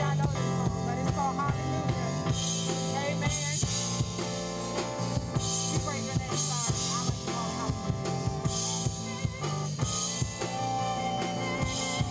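Live gospel band playing an upbeat groove: a drum kit with bass drum and cymbals over a steady low bass line, with a singer's voice coming in over it in places.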